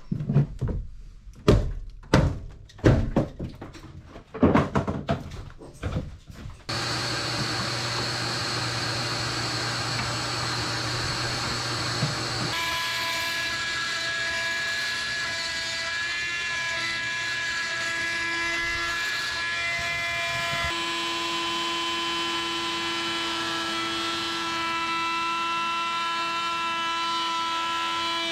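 Several loud knocks and thuds of demolition work on a camper's interior for the first six or seven seconds. Then a steady layer of held, droning chords cuts in suddenly and shifts to new notes twice, most likely background music.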